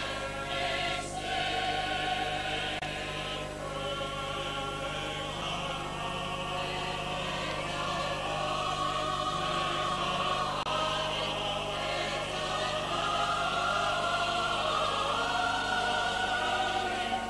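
Soundtrack music of choral singing in an operatic style, with many voices holding long notes that shift slowly.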